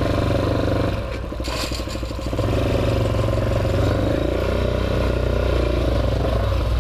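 Hawk 250 motorcycle's single-cylinder engine running at low revs as the bike rolls slowly, the revs rising and falling gently in the middle. A brief rush of noise about a second and a half in.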